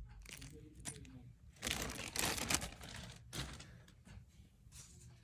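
Quiet handling noise of a small plastic parts bag holding a washer and pins: crinkling and light clicks, loudest for about a second in the middle.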